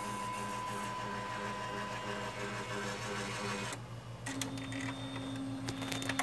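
Epson L1300 inkjet printer running with a steady mechanical hum; nearly four seconds in the sound changes to a higher steady whine.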